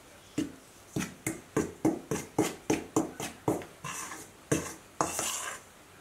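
Metal spoon stirring dry flour in a stainless steel bowl, clinking against the side of the bowl about three times a second, then one longer scrape near the end.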